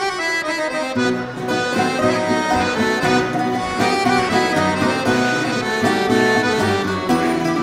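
Rebetiko band playing an instrumental passage: accordion leads the melody over plucked strings, with a bass line coming in about a second in.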